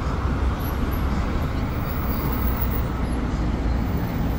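Steady street traffic: cars driving along a wide city avenue, a continuous rumble of engines and tyres.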